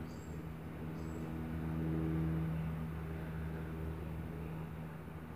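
Breath blown steadily into a smoking tinder bundle of palm husk and mesquite bark to coax a bow-drill ember into flame, swelling about two seconds in. A steady low mechanical hum runs underneath.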